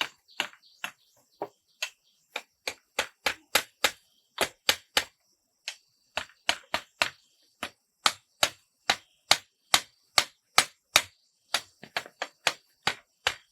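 Rapid, sharp strikes of a hand tool on wood, about two to three a second, in runs broken by short pauses.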